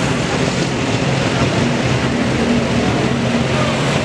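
Engine of a vintage sports racing car running steadily as it creeps along at low speed.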